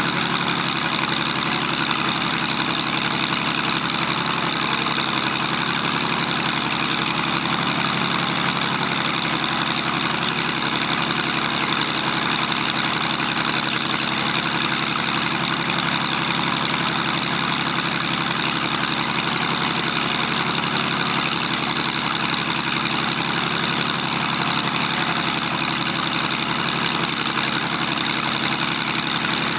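Zlin Z-526F's Walter Minor six-cylinder inverted air-cooled engine and propeller running steadily on the ground during a pre-takeoff engine check, holding one even speed with no change in pitch.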